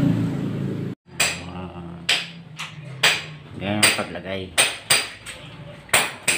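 Hammer blows at an irregular pace, about a dozen sharp strikes, with voices in the background partway through. Before a cut about a second in there is a steady low hum.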